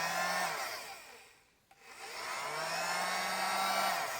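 Silverline 2000 W hot air gun running with a steady fan whir. About a second in it winds down and cuts out, then starts up again after about half a second, and near the end it winds down again. The cutting out is the sign of a faulty power cable losing contact.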